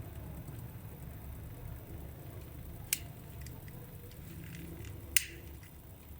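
Two sharp snaps about two seconds apart, the second the louder, with a few fainter ticks and a brief hiss between them, over a low steady hum.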